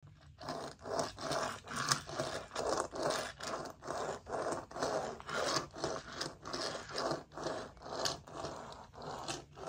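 A plush toy with a small plastic toy under it being scraped back and forth across a floor, in a steady rhythm of about three strokes a second.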